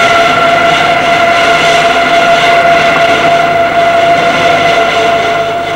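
Metal-cutting lathe taking a turning cut, the tool on the spinning workpiece giving a steady whine with overtones over the machine's noise. It fades away near the end.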